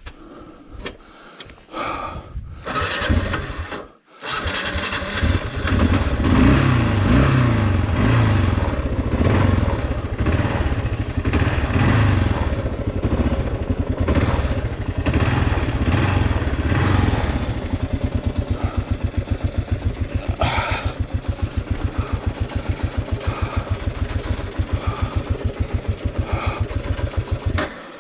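Kawasaki KLR650's single-cylinder four-stroke engine catching about four seconds in after a short burst of cranking, then running with the throttle worked up and down for over ten seconds. Near the middle it settles into an even, rapid idle thump.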